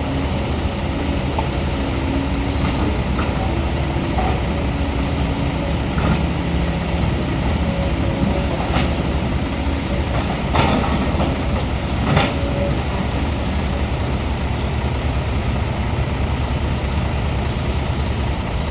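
Heavy diesel construction machinery running steadily, with a few sharp metallic clanks and knocks at intervals.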